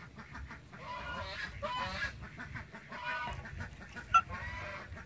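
Birds calling: a string of short, pitched calls following one another closely. One sudden, much louder short sound comes about four seconds in.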